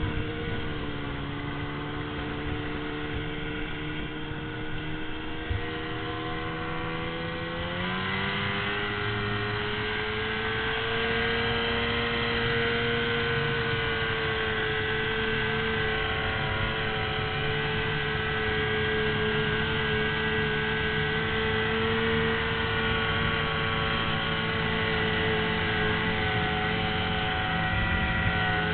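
Snowmobile engine running while the sled travels, its pitch rising about eight seconds in and then holding steady.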